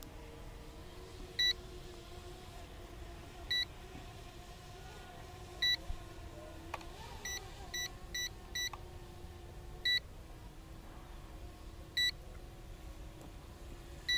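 Short high electronic beeps from a drone remote controller's buzzer, about one every two seconds, with a quick run of four near the middle: the remote's low-battery warning. A faint steady hum runs beneath.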